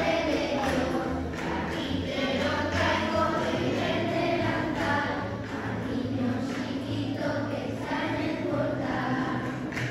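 Children's choir singing a Christmas song, with low sustained notes underneath.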